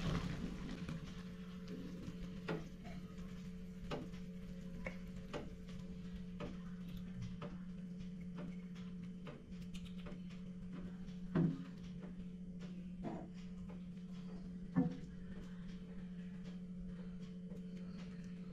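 Spatula and ceramic plate clicking and knocking against a wok as cooked eggplants are lifted out, a scatter of light taps with two louder clinks about eleven and fifteen seconds in, over a steady low hum.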